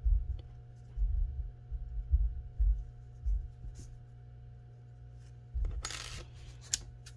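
Handling noise from working a cotton crochet piece and its yarn tail: a series of low dull bumps as the hands pull the yarn through the stitches with a needle, then a short rustle and a click as the coaster is turned over, about six seconds in. A steady low hum runs underneath.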